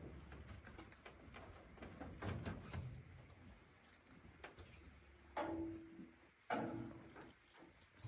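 Quiet outdoor ambience with birds calling, including a short, high, falling chirp near the end, and two louder rustling knocks a little past halfway, the first with a brief steady hum in it.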